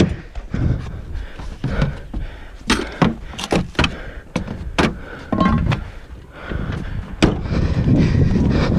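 Clunks and sharp knocks of gear being pulled out of an SUV's rear cargo area and the rear door being handled, a handful of separate hits, then footsteps over snow near the end.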